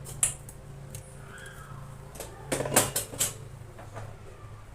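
A few sharp knocks and clatter of kitchen things being set down and handled, a single click near the start and a quick cluster of knocks near the middle, over a low steady hum.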